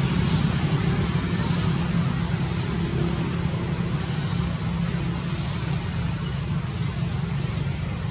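A steady low rumble of outdoor background noise, with a few brief high-pitched chirps about five and seven seconds in.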